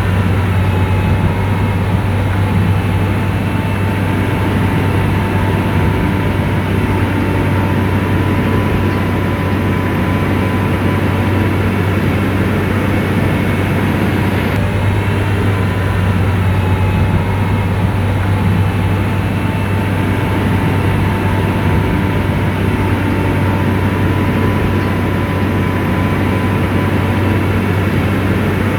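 Komatsu bulldozer's diesel engine running steadily under load, with a deep, even hum.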